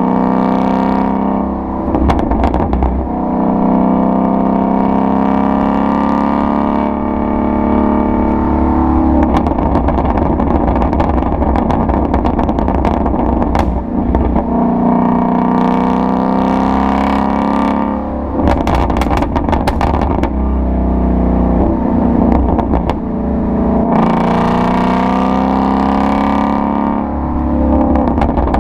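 Ford Mustang Shelby GT350's V8 exhaust running loud under changing throttle, its note swelling and easing in several surges. Sharp crackling pops come in short clusters about two seconds in, around halfway, and again a few seconds later.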